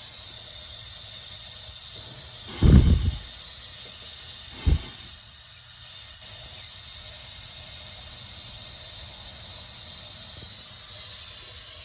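Steady hiss of low-pressure compressed air driving smoke from a homemade smoke machine into the engine's vacuum system to find leaks. Two dull thumps, one a little over two seconds in and one near five seconds.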